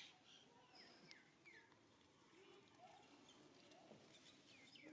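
Quiet outdoor ambience with faint, short, falling animal chirps scattered through it.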